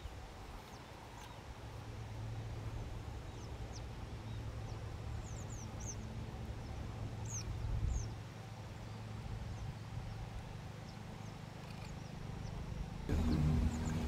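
Outdoor ambience: a steady low hum under faint background noise, with brief, high, thin chirps of small birds scattered through it. The sound grows louder with a change of shot near the end.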